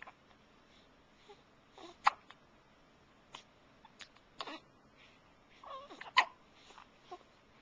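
Baby hiccuping: short, sharp hiccups every second or so, the loudest about two and six seconds in, with a brief fussy vocal sound just before the second loud one.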